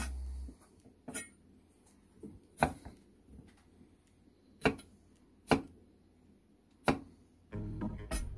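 Chef's knife chopping bell peppers on a wooden chopping board: about five separate sharp knocks of the blade meeting the board, a second or so apart.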